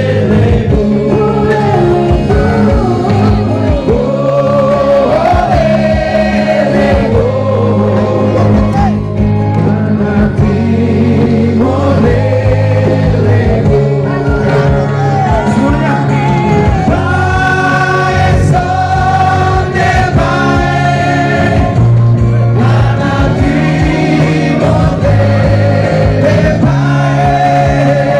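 Live amplified music: several men singing a song together into microphones, over a band with a keyboard holding sustained chords.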